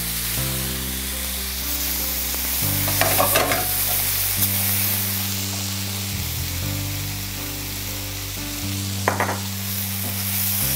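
Zucchini, mushrooms and shallots sizzling steadily in olive oil in a stainless steel skillet while a spatula stirs them, with short louder scrapes about three seconds in and again near nine seconds. Soft background music with sustained chords plays underneath.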